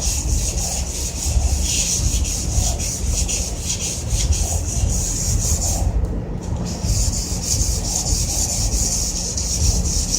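Quick back-and-forth rubbing strokes on a water heater's casing as it is cleaned down for painting, with a short break about six seconds in.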